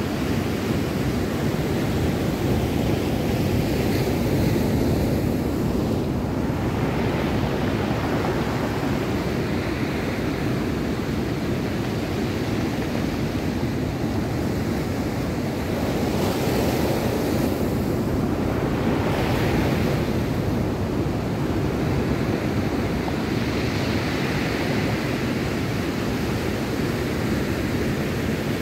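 Ocean surf breaking onto a stony cobble beach, a steady wash of noise that swells as each wave breaks every few seconds.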